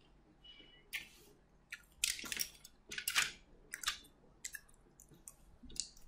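Desk handling sounds: a dozen or so short, irregular scratchy rustles and taps, loudest about two to three and a half seconds in.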